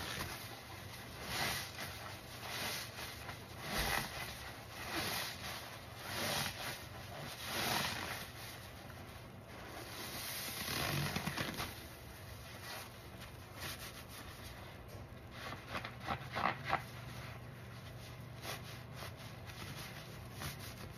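A soap-laden sponge squeezed and wrung by gloved hands in foamy, sudsy water: wet squelching squeezes about once every second and a bit, then a longer squeeze and later a run of quicker, softer squishes with crackling foam.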